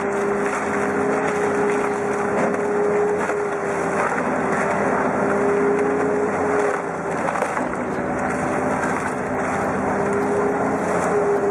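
A heavy forestry machine's engine running steadily with a constant hum over dense mechanical noise, easing off slightly about halfway through.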